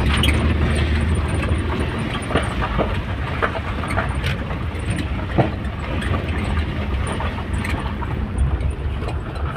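Tata Safari Storme's VariCOR diesel engine running under way on a test drive after a replacement turbocharger core was fitted: a steady low rumble of engine and road noise, with scattered small knocks and rattles.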